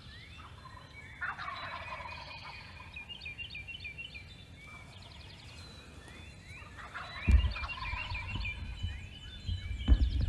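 Wild turkey gobbling twice, about a second in and again about seven seconds in, with small songbirds chirping between the gobbles. A low rumble and thump on the microphone comes in with the second gobble.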